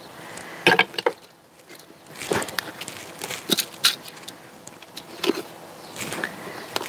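Handfuls of compost being scooped and dropped into a terracotta pot by gloved hands: a series of short, irregular crackling rustles.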